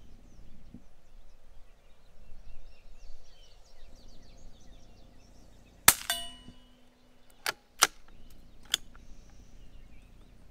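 One quiet shot from a Savage Mark II bolt-action rifle firing Aguila Super Colibri, a very low-powered .22 LR round. It comes as a sharp crack about six seconds in, followed by a brief ringing that is typical of a steel target being hit. Three sharp clicks follow over the next three seconds as the bolt is worked to eject and rechamber, and the next round does not chamber well, which the shooter suspects is a magazine spring issue.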